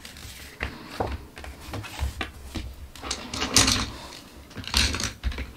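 A hardcover sketchbook being opened and handled on a wooden desk: a few soft knocks in the first couple of seconds, then two papery swishes as the pages are turned and pressed flat, one past the middle and one near the end.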